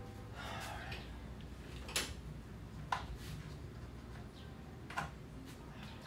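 Hands working in a pickup's engine bay: a soft rattle near the start, then three light, sharp clicks spaced a second or two apart.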